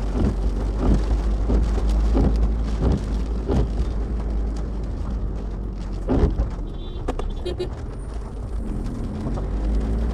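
Heavy rain on a moving car, heard from inside the cabin: a steady low rumble of the car and its tyres on the wet road under the even hiss of rain on the windscreen, with a few brief knocks.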